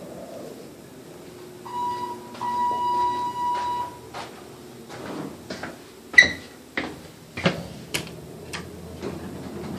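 ThyssenKrupp hydraulic elevator's electronic signal sounding twice, a short steady beep and then a longer one of about a second and a half. It is followed by a string of sharp clicks and knocks, the loudest about six seconds in, as the car's buttons are pressed.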